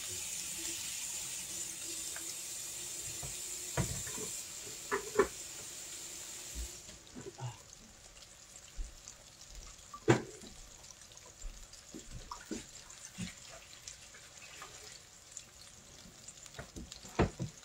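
Battered chicken deep-frying in a pot of hot oil: a steady sizzle that fades down after about seven seconds, leaving a softer bubbling. A few short sharp knocks cut through it, the loudest about ten seconds in.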